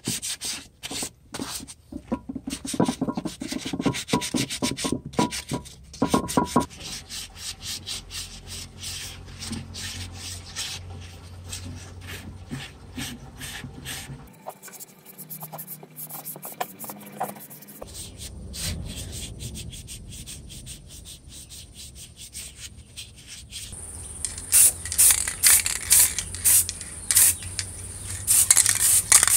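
Hands scrubbing the metal housing and rotor of an old electric drill motor in soapy water, a rapid run of rubbing and sanding strokes that grows softer after the first several seconds. Near the end, a spray-paint can hisses in a series of short bursts as the cleaned housing is painted.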